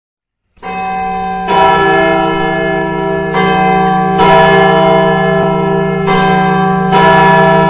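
Bells ringing, starting about half a second in and struck again every one to two seconds, six strikes in all, each with a long ringing tone over a steady low drone.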